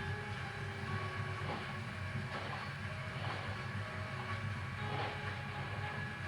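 Hotpoint-Ariston WMD 842 washing machine running, its drum turning with a steady low rumble.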